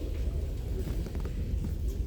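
Steady low rumble of room noise in a school assembly hall, with a few faint knocks.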